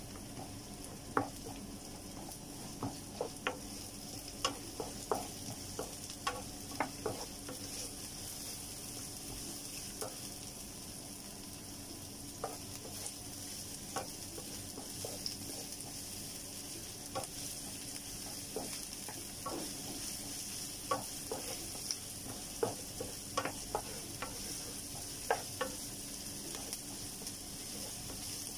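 Chopped onion sizzling in hot oil in a nonstick frying pan, stirred with a wooden spatula that taps and scrapes against the pan at irregular moments, most often in the first few seconds and again in the second half.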